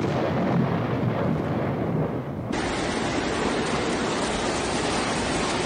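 Heavy rainstorm with a low rumble like thunder. About two and a half seconds in the sound cuts abruptly to a brighter, steady rushing noise of rain and water.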